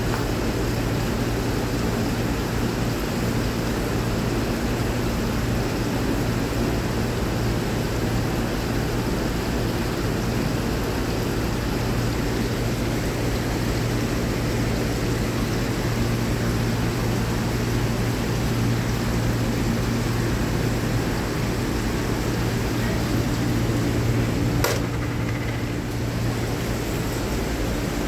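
A steady low mechanical hum over a constant rushing noise, with one sharp click near the end.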